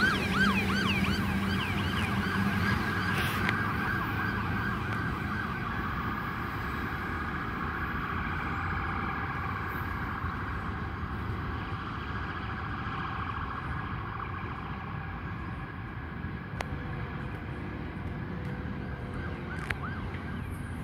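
Freight train rolling away on the track. Its wheels squeal in rapid repeated chirps for the first couple of seconds, then the steady rumble of wheels on rail fades as it recedes.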